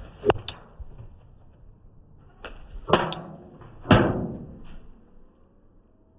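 Airsoft AK rifle firing single shots at can targets: several sharp snaps and BB hits, each with a short ring after it. The loudest come about a third of a second, three seconds and four seconds in.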